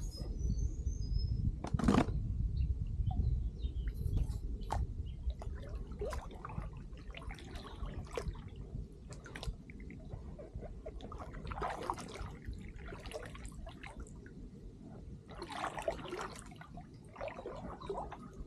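Kayak paddle strokes: the blades dipping into the water with short, irregular splashes and drips every second or so.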